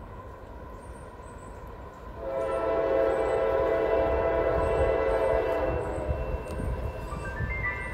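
Freight locomotive's multi-chime air horn, still out of sight, sounding one long blast that starts about two seconds in and holds for about four seconds, then drops away to a softer, trailing sound. A low rumble runs underneath.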